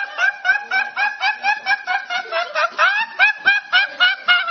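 A young man laughing uncontrollably in quick, high-pitched bursts, about four a second, many of them rising in pitch.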